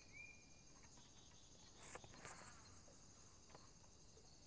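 Near silence: faint outdoor background with a few soft clicks and rustles.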